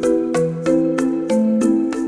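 Background music: a bright, light tune with mallet-like or plucked notes, about three a second, over held chords.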